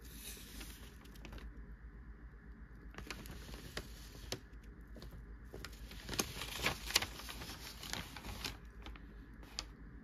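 Newspaper pages rustling and crinkling as they are handled, in three bursts, the loudest about six to seven seconds in.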